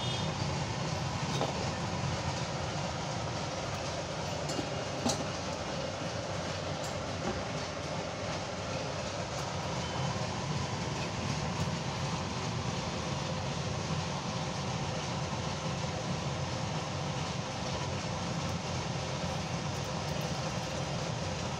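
Steady whirring hum of an induction cooktop heating oil in a metal wok, with a few faint clicks.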